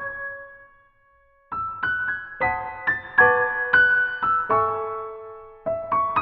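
Gentle piano music. A chord rings out and fades, there is a short pause, then a slow melody of single notes begins over held chords about a second and a half in.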